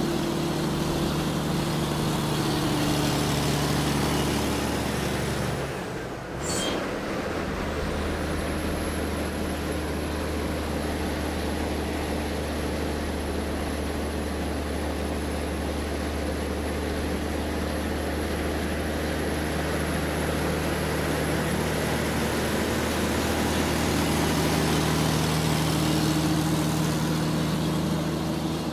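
Excavator's diesel engine running steadily with a low drone, swelling louder at times as it works. There is a brief drop and break about six seconds in.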